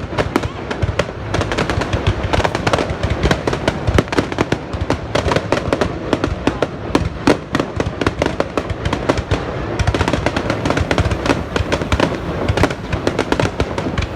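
Fireworks crackling and bursting, a dense, unbroken run of sharp cracks, many a second.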